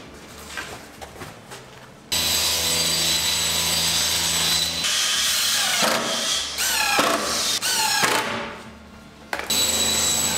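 Power tools at work: a cordless drill/driver whirring in short runs, its pitch rising each time it speeds up, then a table saw starting to run steadily about nine seconds in.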